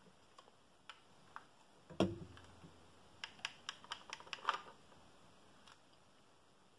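Plastic clicks from a LEGO brick rifle being handled: a single knock about two seconds in, then a quick run of about ten clicks over a second and a half.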